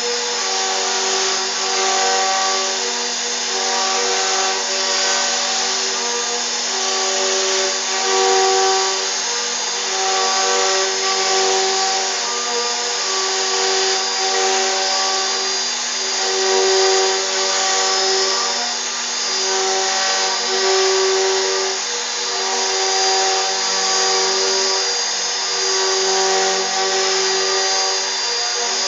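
CNC router carving a 3D relief: a steady high spindle whine, with motor tones that shift and pause every second or so as the cutting head moves.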